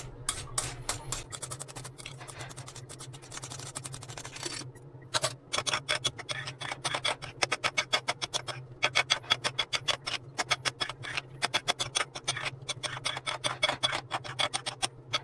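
A utensil clicking and scraping against a bowl as cooked rice is stirred together with beaten egg. It is scattered and softer at first, then becomes a fast, steady run of clicks from about five seconds in.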